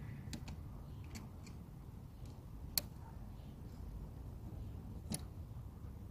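Pliers clicking on a hose clamp as it is fitted to a coolant hose: a handful of scattered sharp clicks, the loudest near the middle and another near the end, over a low steady rumble.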